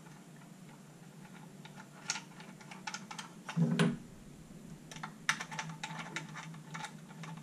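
Small clicks and taps of a hard plastic holster, paddle bracket and mounting screws being handled and fitted together by hand, with a louder dull knock a little past halfway and a quick run of clicks after it.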